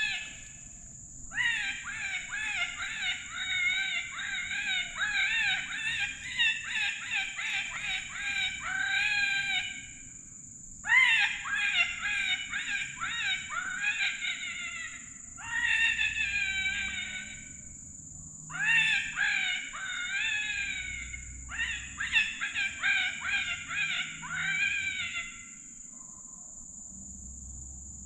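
Electronic predator call playing cottontail rabbit distress: rapid, wavering, squealing cries in five bouts of a few seconds each with short pauses between. A steady high insect drone runs underneath.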